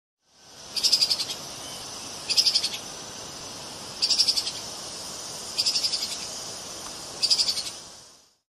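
Five short, high-pitched chirps, each a rapid trill of clicks, evenly spaced about every second and a half over a steady hiss of background ambience.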